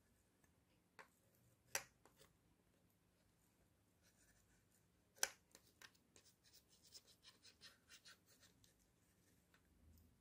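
Near silence with faint clicks and small ticks from soldering a component onto a copper circuit board with a soldering iron and solder wire: two brief clicks, then a patter of tiny ticks about six to eight seconds in.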